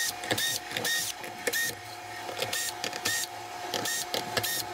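Cordless drill/driver backing out the Phillips screws that hold a subwoofer's plate amplifier, its motor running in many short bursts, two or three a second.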